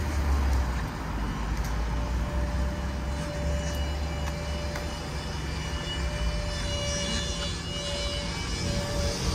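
Street traffic: cars passing on a wet road, a steady low engine rumble with tyre noise, and a faint held whine through most of it.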